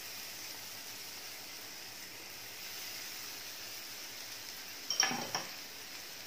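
Garlic butter sizzling steadily in a hot non-stick pan under pav buns. Near the end come a couple of sharp clicks with a short ringing, like a utensil knocking the pan.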